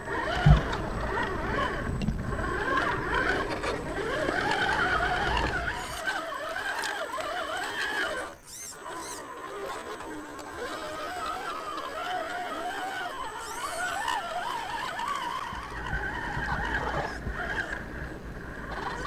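RC rock crawler's 55-turn brushed electric motor and gearbox whining, the pitch rising and falling with the throttle, as the tyres churn through mud; a sharp knock about half a second in.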